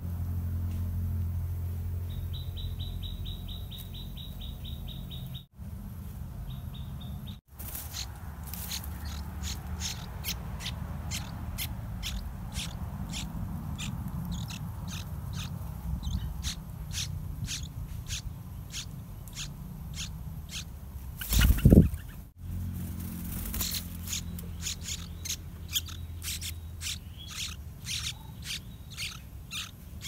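Yellow-vented bulbul nestlings begging at the nest: a long run of short, sharp, high chirps repeating several times a second. Near the start, a fast high ticking trill runs for a few seconds. About two thirds of the way through, a brief loud thump is the loudest sound.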